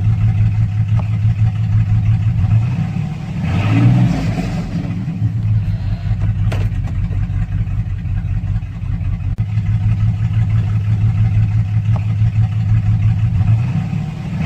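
Chevrolet Silverado's 4.3-litre V6 engine running steadily, its note rising briefly about four seconds in and again near the end.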